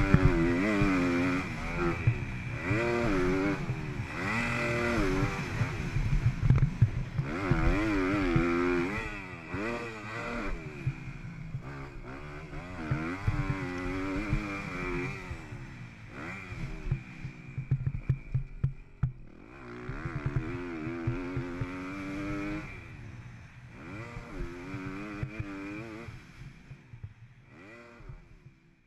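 Motocross bike engine revving up and backing off again and again through the lap, its pitch rising and falling, heard from a camera on the rider. The engine noise fades out near the end.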